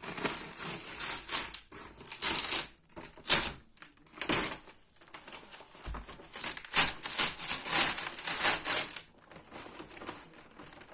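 Old wallpaper being torn and peeled off a wall: a string of irregular, scratchy paper rips with crinkling between them.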